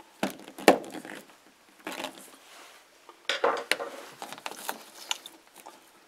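Phillips screwdriver clicking and scraping on the screws and plastic of a self-contained mobile home light switch, then the plastic switch being gripped and worked loose. A few short bursts of clicks and scrapes with pauses between them; the sharpest click is a little under a second in.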